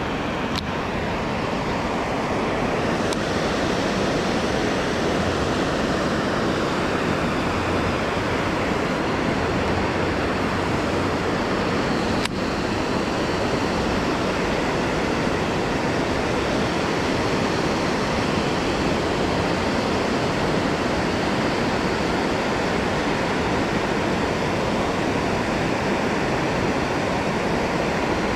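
Water spilling over a low-head dam and churning below it: a steady, unbroken rush of white water.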